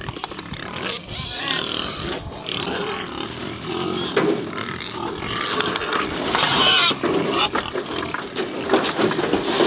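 A group of Iberian pigs grunting and squealing while crowded at a feeder, with the louder squeals about a second and a half in and again near seven seconds.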